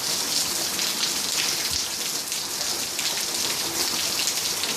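Heavy rain falling steadily: a dense, even patter of drops with no letup.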